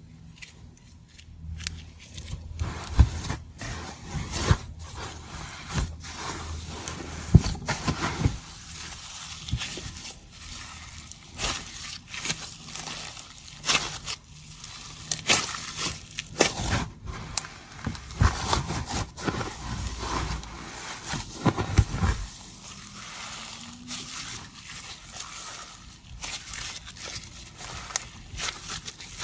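Floam, slime loaded with small foam beads, being pressed through loose beads and then kneaded, squeezed and stretched by hand, giving irregular crunching and crackling pops as the beads are crushed together. It starts faintly and grows busy after about two seconds.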